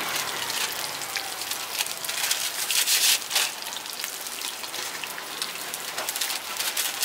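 Food sizzling in hot oil: a steady crackling hiss with scattered louder pops.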